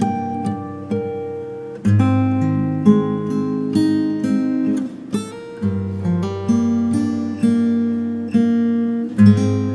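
Acoustic guitar playing a slow, calm instrumental: plucked notes ringing and fading, over a deep bass note struck about every four seconds.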